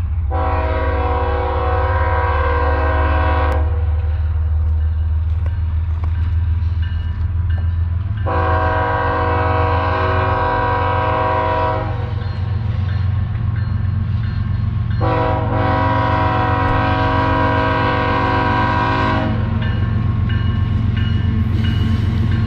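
BNSF diesel locomotive air horn sounding three long blasts of three to four seconds each, spaced a few seconds apart, over a steady low rumble from the approaching coal train.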